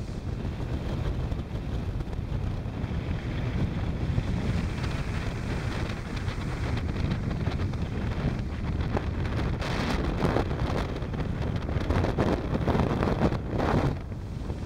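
Wind buffeting the microphone of a camera riding on a moving motorcycle: a steady rush that swells and eases in gusts.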